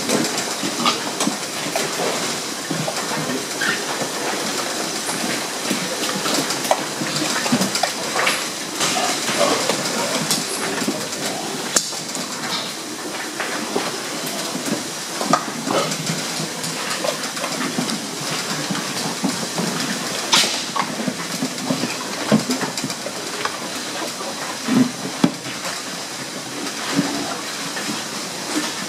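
Fattening pigs nosing and rooting at a stainless-steel pellet dispenser over a trough: irregular clatter and knocks of snouts on metal over a steady hiss of barn noise.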